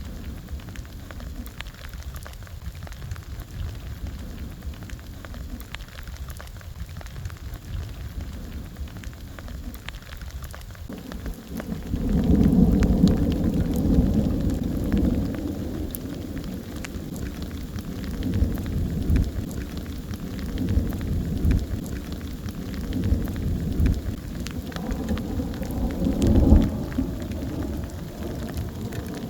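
Rain falling steadily with the patter of drops, joined about eleven seconds in by a long roll of thunder that rumbles low and swells several times before easing.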